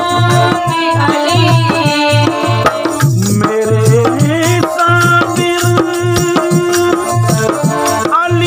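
A ghazal sung live by a man's voice over harmonium, with a hand-played dholak drum keeping a steady beat.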